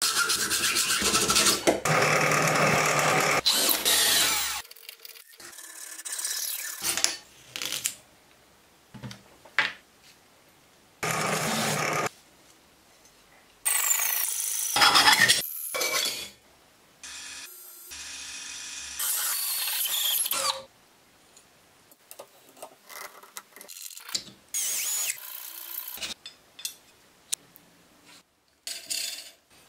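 Hacksaw strokes cutting metal tube and aluminium angle held in a bench vise, in a series of short rasping bursts that start and stop abruptly, with small metallic clicks and quiet gaps in between.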